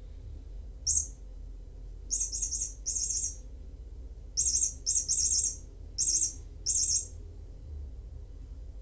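A series of short, high-pitched bird-like chirps, about seven in all, some coming in quick pairs, from about a second in to about seven seconds in.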